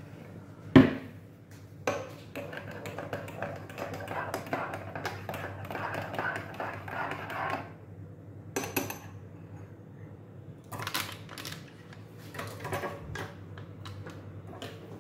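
Metal spoon stirring coffee in a ceramic mug, clinking against the mug's sides. It begins with one sharp clink, then several seconds of rapid clinking, followed by a few shorter runs of clinks and taps.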